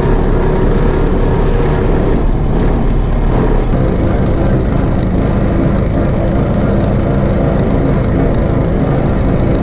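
Allis-Chalmers Model U tractor engine running steadily under way, heard up close from the driver's seat, with a rough, noisy rattle over its low hum.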